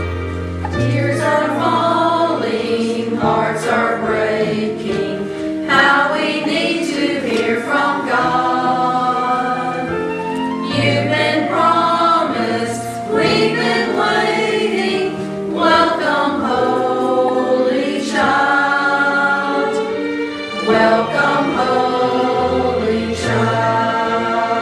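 Mixed church choir of men and women singing together, phrase after phrase with short breaths between.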